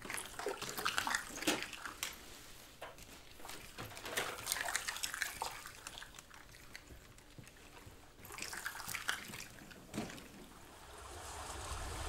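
Water sloshing and trickling in plastic bottles as they are handled, with scattered clicks and crackles. It thins out midway and picks up again about eight seconds in, with one sharper click near the end.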